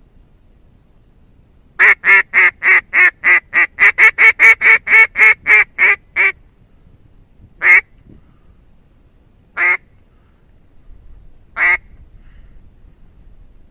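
Duck quacking loudly: a fast run of about seventeen quacks, roughly three or four a second, then three single quacks about two seconds apart.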